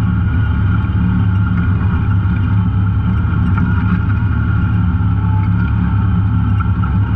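Off-road vehicle engine running at a steady pace while riding a trail, with a thin steady whine above the low engine note.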